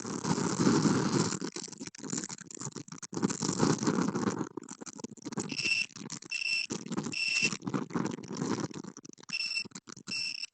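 A machine's engine rumbles roughly. About halfway through, a reversing alarm starts, giving a steady run of short electronic beeps about 0.7 s apart, with a brief pause before it resumes near the end.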